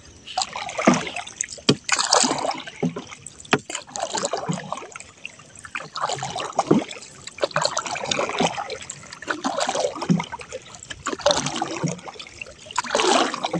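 Water splashing and dripping off a three-layer trammel net as it is hauled by hand out of the river over the side of a small boat, in uneven splashes with a few sharp knocks.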